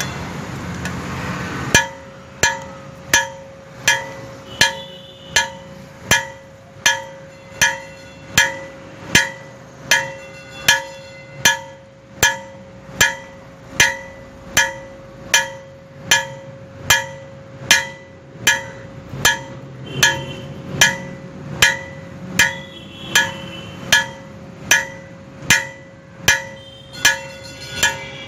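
Blacksmith's hand hammer striking hot steel on an anvil while forging 12 mm square stock into tongs: a steady run of blows, about one and a half a second, each with a bright ringing anvil tone that hangs on between strikes. The blows begin about two seconds in, after a short steady rushing noise.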